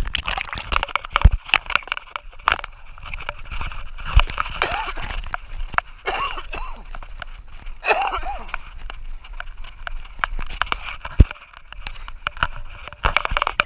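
Water sloshing and bubbling around an action camera held at the waterline, with many sharp clicks and pops as the water moves against it.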